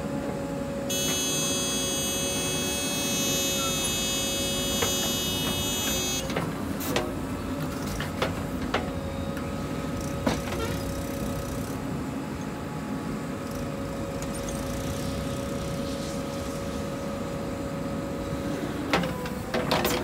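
JCB 3DX backhoe loader's diesel engine running steadily under load while the backhoe digs and swings. A high-pitched whine is heard for about five seconds near the start, and a few sharp knocks come in the middle and again near the end.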